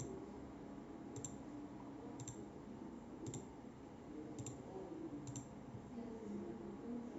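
Computer mouse clicking: six single, faint clicks about a second apart.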